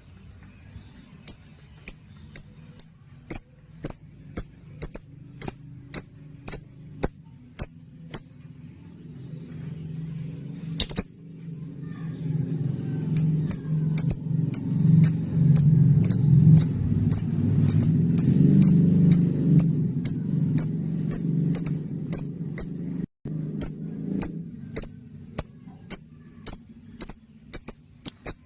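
Lovebird giving short, sharp high-pitched chirps in a steady series of about two a second, pausing for a few seconds partway through. A low hum swells under the calls in the middle and fades near the end.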